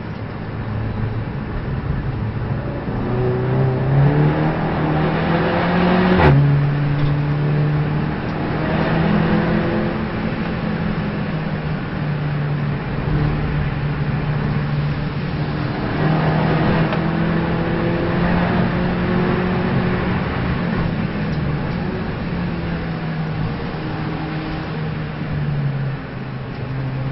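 Race car engine pulling hard through the gears, its pitch climbing slowly and then stepping down at each upshift, with a sharp click at the shift about six seconds in.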